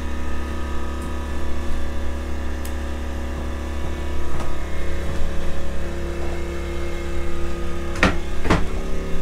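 Steady engine hum of a generator running outside the RV, with two sharp knocks about half a second apart near the end.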